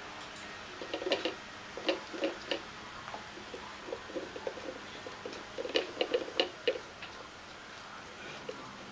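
A hard ball, taken from a computer mouse, knocking and clicking against the inside of a jar as a kitten paws at it. The sound is quick taps in two flurries, about a second in and again past halfway, with scattered taps between.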